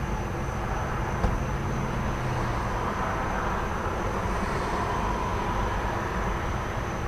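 An idling truck engine rumbles low and steady while passing traffic swells through the middle. Crickets give a thin, steady high trill over it. One short sharp snap comes about a second in.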